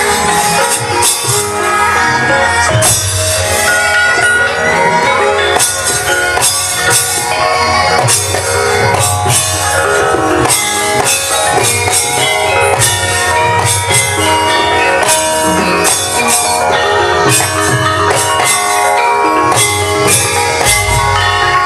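Javanese gamelan music playing without voice, with many ringing struck tones over a continuous beat.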